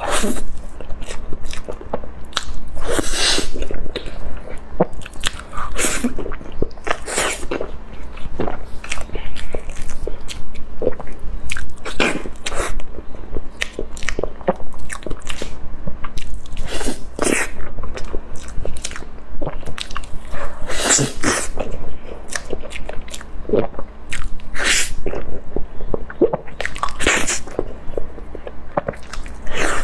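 Close-miked mouth sounds of a person biting and chewing soft layered crepe cake, with irregular short sharp clicks and smacks.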